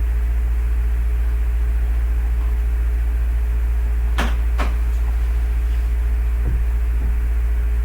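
Loud, steady low electrical hum, with two sharp clicks about four seconds in and two fainter clicks a couple of seconds later.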